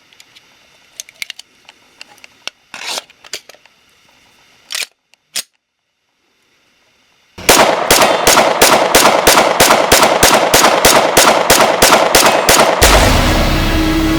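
Faint scattered clicks, a moment of silence, then a sudden rapid run of loud sharp bangs, about four a second, like automatic gunfire. Near the end this gives way to a loud continuous sound.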